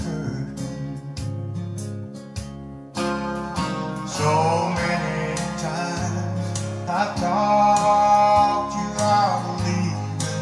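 A song with guitar and a singing voice over a steady bass line, played back through a two-way hi-fi speaker with an SB Acoustics SB15NAC woofer and SB29RDNC tweeter, driven by a Blameless 100 (BL100) power amplifier.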